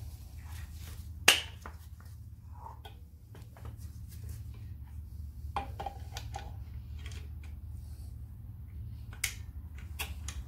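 Metal clicks and clinks of pliers, cable and brake shoe as a Land Rover Defender handbrake shoe is connected to the handbrake cable, with one sharp loud click about a second in and lighter clicks later. A steady low hum runs underneath.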